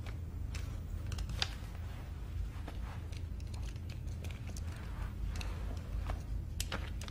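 A low, steady hum of room tone with scattered soft clicks and rustles as a man slowly takes off his wire-rimmed glasses.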